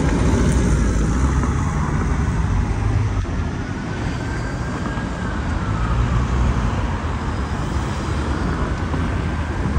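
Road traffic on a main street: cars driving past over a steady, loud road noise that is heaviest in the low end.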